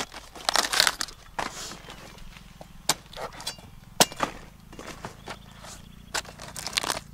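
Crisp cabbage leaves rustling and crunching as a cabbage head is handled and its outer leaves are hacked off with a large chopping knife, with sharp chops about three and four seconds in.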